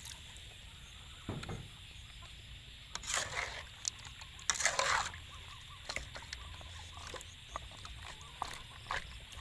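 Domestic fowl clucking in a few short calls over a steady low background, with scattered small clicks and knocks.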